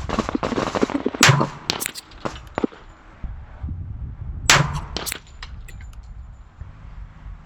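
Two loud pistol shots about three seconds apart, a little over a second in and midway, from a CZ 97BE .45 ACP pistol fired slow and deliberately, with fainter gunshots between them. Gusty wind rumbles on the microphone throughout.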